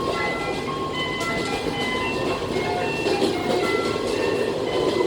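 Diesel railcar running along the line, heard from inside the car: a steady rumble of engine and wheels on the rails. Short high-pitched squeals come and go throughout.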